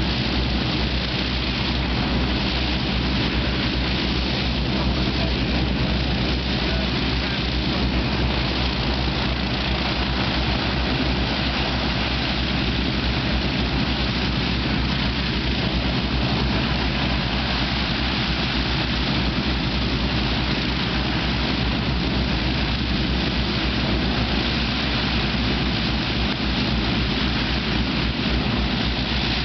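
Rolls-Royce Griffon V12 piston engines of an Avro Shackleton running steadily on the ground, their contra-rotating propellers turning, a deep constant drone with no change in speed.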